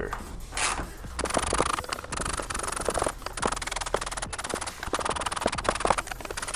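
Small socket ratchet clicking rapidly as it loosens 8 mm bolts on a plastic headlight housing, with a few louder knocks of the tool against the housing.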